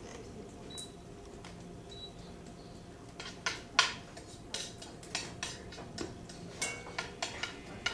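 Dishes and utensils clinking and knocking on a kitchen counter as food is handled. A quiet start, then a run of irregular clinks from about three seconds in.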